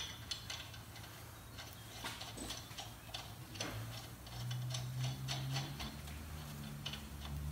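Light, irregular metallic clicks of a lug nut being spun by hand onto a wheel stud against a new brake rotor. A low steady hum comes in about halfway through.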